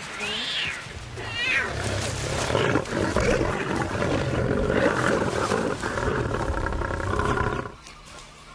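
Lion cub mewing: a high call that rises and falls, then a quick wavering call, followed by a longer, steadier, lower sound that stops shortly before the end.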